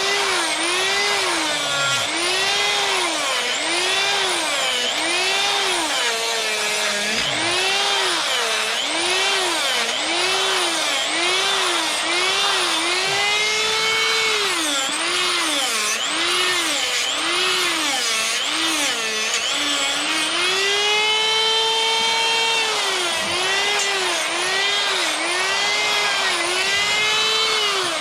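A high-revving power carving tool cutting fur lines into wood. Its pitch rises and falls about once a second as it bites in and is lifted out, stroke after stroke.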